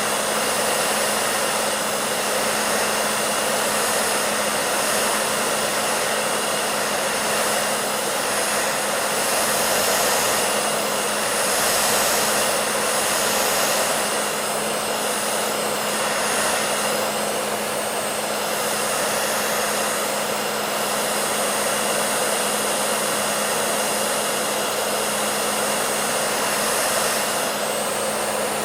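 Hair dryer running continuously, a steady loud blowing hiss with a low motor hum underneath.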